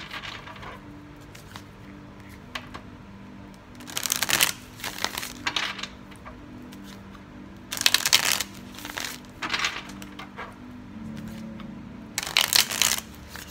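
A deck of tarot cards being shuffled: four short bursts of cards flicking against each other, about four seconds apart, with a few lighter card sounds between them.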